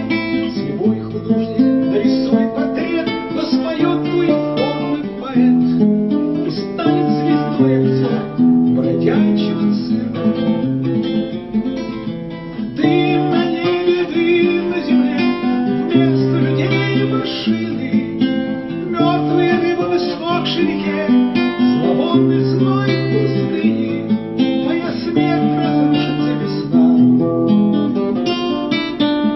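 Instrumental passage of a song led by acoustic guitar: plucked and strummed chords over a bass line, with no singing.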